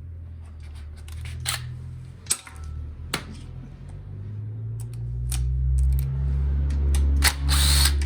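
Sharp metallic clicks of hand tools and loose parts, then a cordless drill/driver whirring briefly near the end as the engine's bolts are backed out. A steady low hum runs underneath and gets louder about five seconds in.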